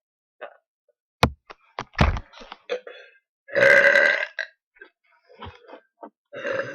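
A person burps loudly once, for about a second, near the middle, after two sharp thumps.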